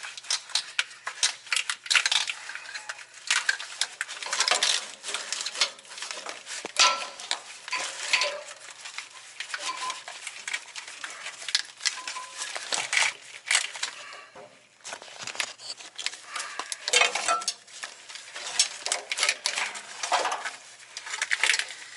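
Hands working with a truck wiring harness and parts: irregular clicking, clinking and rustling of plastic connectors, wire loom and metal, with a short lull about two-thirds of the way through.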